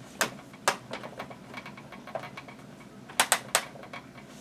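Scattered sharp clicks and taps of plastic toy-kitchen pieces being handled, with a quick run of three clicks about three seconds in.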